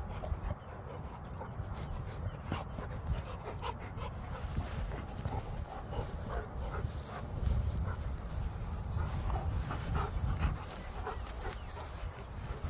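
German Shepherd dogs panting as they play, with scattered small clicks and scuffs and a steady low rumble.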